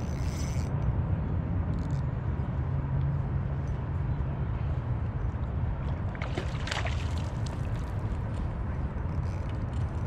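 Steady low rumble with water sloshing around a float tube on open water. A short run of sharp clicks comes about six to seven seconds in.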